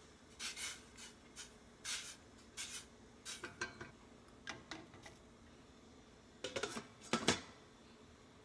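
A silicone spatula scraping and tapping in a stainless steel saucepan, a string of short scrapes and knocks. Near the end a glass lid goes onto the pan with a louder clatter.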